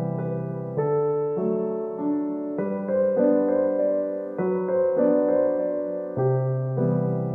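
Background piano music: a slow, gentle piece with a new note or chord struck about every half second.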